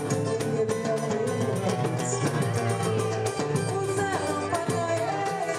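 Live samba: a woman singing over cavaquinho strumming, pandeiro and a hand drum keeping a steady beat.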